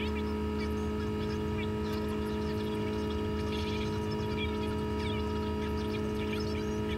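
Diesel engine of heavy equipment running steadily at constant speed, a level drone with no change in pitch.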